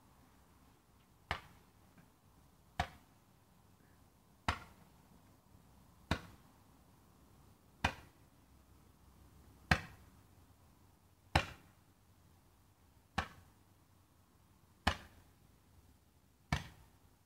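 A repeating firework launching shot after shot: ten sharp bangs at an even pace, about one every 1.7 seconds, each trailing off in a short echo.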